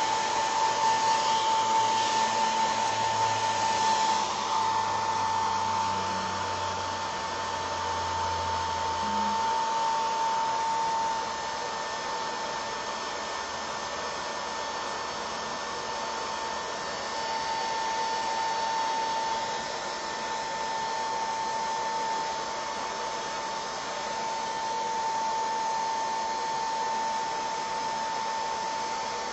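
Hand-held hair dryer blowing on a freshly painted ceramic spoon to dry the paint: a steady high whine over the rush of air, a little quieter from about eleven seconds in.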